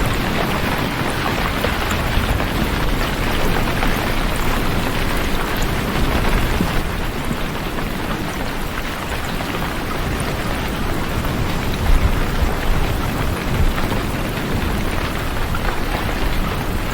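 Steady rain falling, a dense even hiss with a low rumble underneath.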